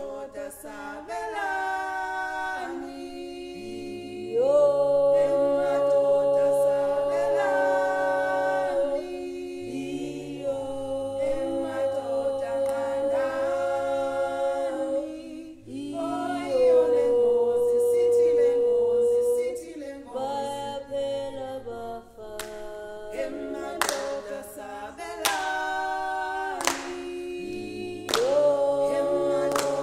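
A group of voices singing unaccompanied in harmony, holding long notes with low and high parts together. About two-thirds of the way through, sharp hand claps join in.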